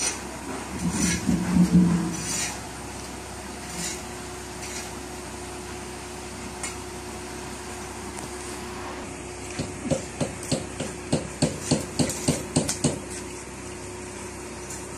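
A long-handled scraper knocking and scraping barnacle crust off a sailing yacht's hull. A louder burst comes about a second in, then after a quieter stretch a run of quick knocks, about three or four a second, from about ten seconds in until about thirteen.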